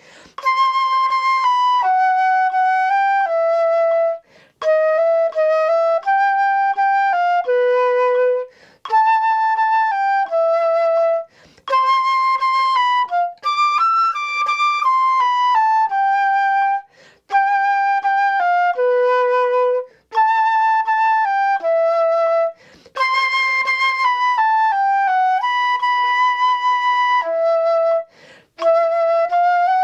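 Solo concert flute playing a slow melodic étude in held notes, phrase after phrase, with a short breath break every three to four seconds.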